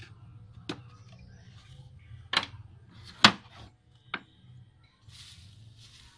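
Wooden board, block and hand tools handled on a wooden workbench: four sharp wooden knocks of uneven strength, the third the loudest, then a short rustle near the end.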